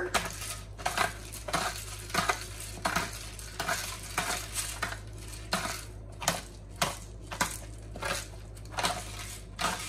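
Pepper mill being twisted by hand to grind peppercorns: a dry, crunching rasp with each twist, about one or two a second.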